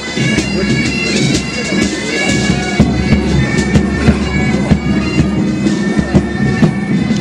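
Pipe band playing a march: bagpipes sounding a melody over their steady drone, with drum beats keeping time.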